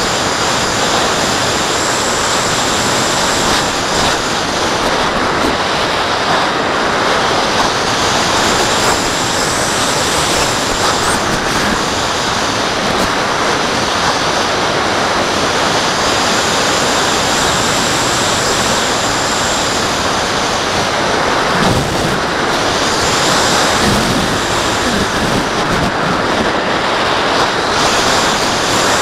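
Airflow rushing over the onboard camera of a radio-controlled glider in flight: a loud, steady wind rush, with a faint high whistle that comes and goes.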